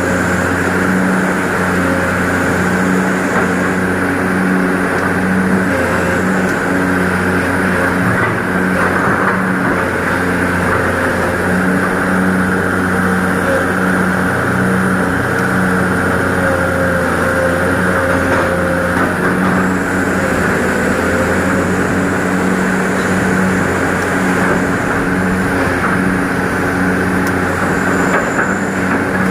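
Excavator's diesel engine running steadily at a constant speed while digging, with a faint wavering whine about halfway through.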